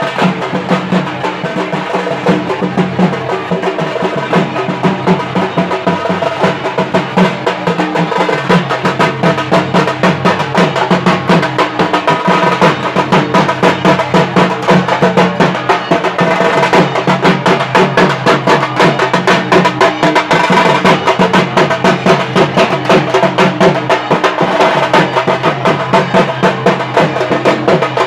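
Dhak drums, the large Bengali barrel drums, beaten fast with thin sticks in a dense, steady rhythm.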